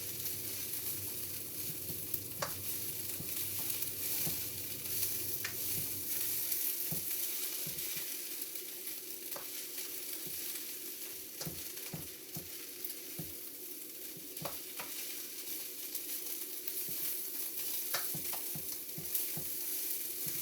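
Food sizzling and frying in a pan while being stirred, with light knocks and scrapes of the utensil against the pan that come more often in the second half.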